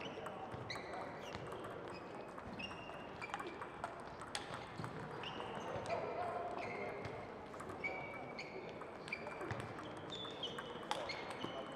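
Table tennis play in a hall: the ball ticking off bats and table, with many short, high squeaks that step down in pitch, over background voices.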